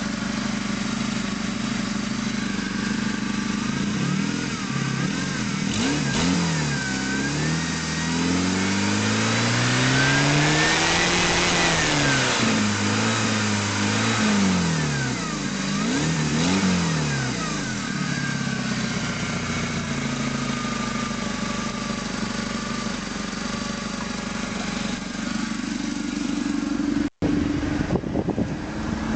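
ZMZ-409 four-cylinder petrol engine of a UAZ idling, then revved several times, one longer rev in the middle, before settling back to a steady idle. It runs evenly with no timing-chain knock, its timing chains freshly replaced.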